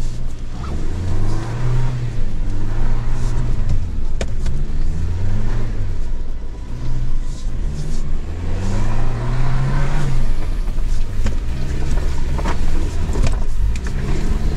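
Toyota Land Cruiser Prado's 2.4-litre turbo four-cylinder petrol engine revving up and down in repeated swells under load as the SUV climbs a steep, slippery off-road slope, heard from inside the cabin. A few sharp knocks come through.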